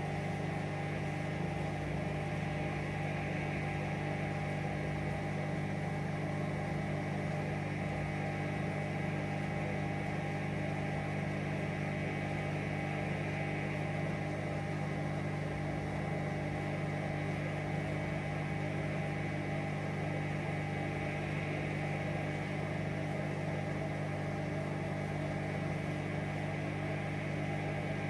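Hoover Vision Dynamic washing machine on a spin-only cycle, its motor and drum giving a steady hum with no knocking.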